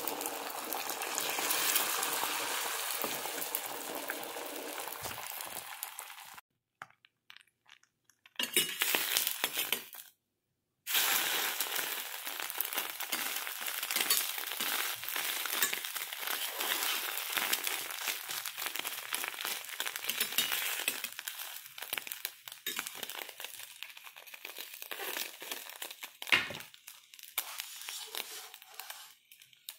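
Beaten egg sizzling and crackling in a stainless steel frying pan. The sizzle cuts out abruptly twice in the first third and thins toward the end, with one sharp knock near the end.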